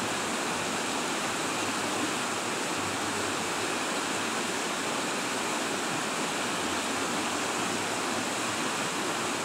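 A river rushing steadily, an even unbroken wash of water noise.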